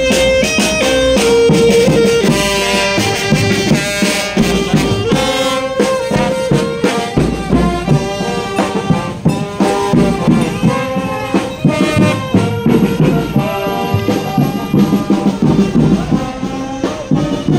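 Funeral brass band playing: trombones and trumpets holding the melody in long notes over a steady bass drum beat with cymbal strokes.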